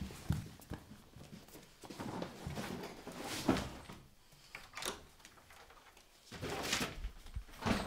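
Someone rummaging in a wardrobe: rustling of clothes and things being moved on the shelves, with scattered knocks and a thump.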